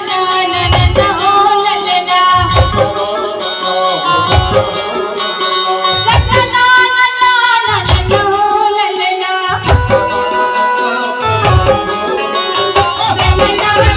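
Chhattisgarhi panthi folk song played live through loudspeakers: singing over instruments and percussion, with a deep beat about every two seconds and a long held note near the middle.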